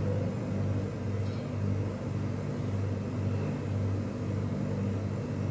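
Steady low hum of an electric appliance motor running.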